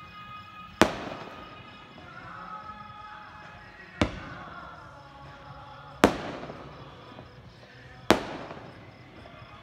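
Aerial fireworks shells bursting: four sharp bangs, about a second in, then at roughly four, six and eight seconds, each with an echo trailing off. Faint music plays underneath.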